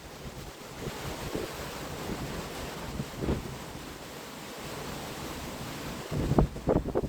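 Strong wind with waves surging and washing, heard as a steady rush. Wind buffets the microphone in a few louder gusts near the end.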